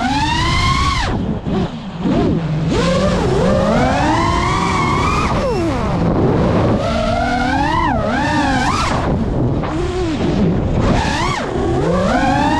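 FPV freestyle quadcopter's brushless motors whining, the pitch sweeping sharply up and down again and again with each throttle punch through flips and dives, over wind rush on the microphone.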